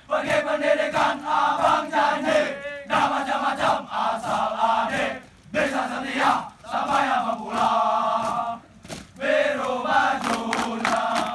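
A group of trainees chanting a yel-yel team cheer together in loud, rhythmic phrases, with short breaks between phrases.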